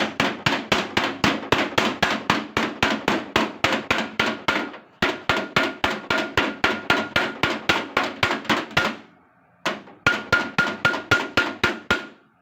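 Hammer beating the sheet metal of a car door in quick, even blows, about four a second, each with a short metallic ring. The blows stop briefly about five seconds in and again about nine seconds in.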